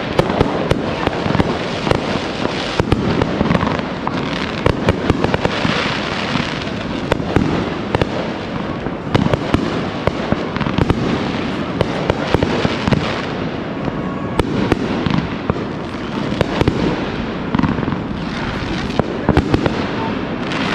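Fireworks going off in a dense, continuous barrage: a rapid stream of crackles and pops with louder bangs scattered through it.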